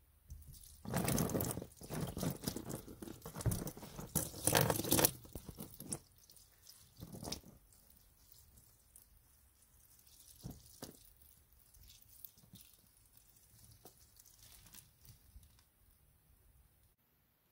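Lavender Fabuloso cleaner poured from a bottle onto a stack of dry sponges. The liquid splashes and crackles loudly for the first few seconds, then gives fainter drips and crackles as it soaks in and runs into the plastic tub.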